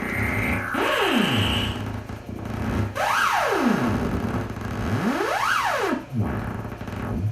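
Korg Monotron analog synthesizer playing a buzzy pitched tone that swoops up and then down in pitch three times, slow sweeps of about a second or more each, as its knobs are turned to shape a patch.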